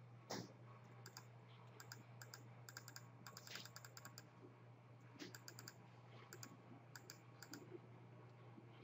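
Faint typing on a computer keyboard: several short runs of quick keystrokes with pauses between.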